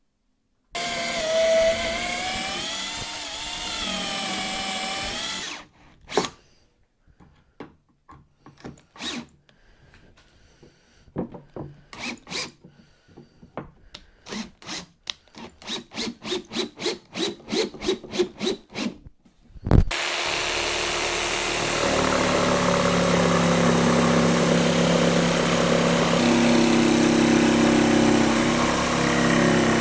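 A cordless drill runs for a few seconds, its speed rising and falling, followed by a run of clicks and knocks that settle into about two a second. Then, after a sharp knock, a corded power tool runs steadily.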